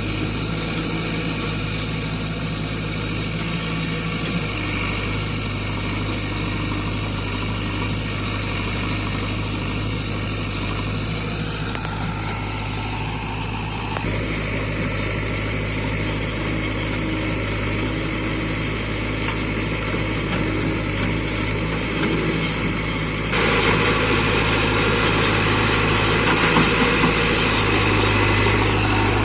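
Diesel engine of heavy machinery running steadily at a low, even speed, with a sudden change in its sound about halfway through and a clear step up in loudness near the end.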